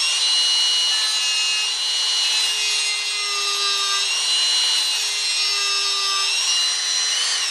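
Dremel rotary tool running at high speed with a small sanding bit, sanding along the edge of a wooden workpiece: a steady high-pitched whine with the rasp of wood, its pitch sagging slightly now and then under load. It starts winding down at the very end.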